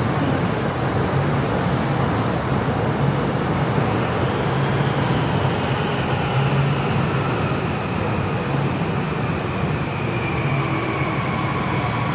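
Metro train running: a steady rumble and hum of wheels and motors, with a high electric whine that comes in about a third of the way through and slowly falls in pitch.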